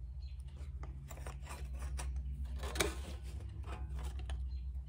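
Pliers clicking and scraping on a strip of galvanized sheet steel as its bent flange is worked back straight by hand, with a sharper click a little before three seconds in. A steady low hum runs underneath.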